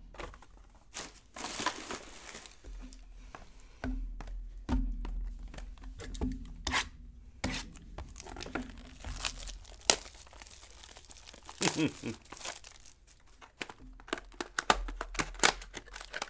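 Sealed trading card boxes being handled and opened by hand: cardboard and plastic wrapper tearing and crinkling in a string of short rustles and taps.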